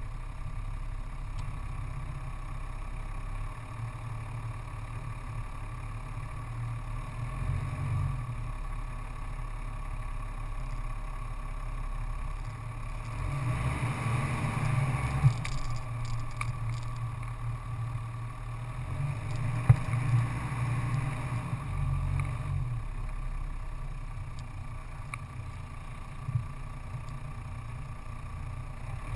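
An off-road vehicle driving on a sandy dirt track: a steady low engine drone with tyre and wind noise. There is a louder rush of noise around the middle, and a few sharp knocks.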